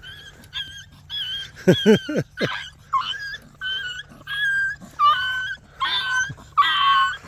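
Puppy crying after an adult dog snapped at it: a run of short, high-pitched whimpering squeals, about one or two a second, with a few quick falling yelps about two seconds in. It grows louder near the end.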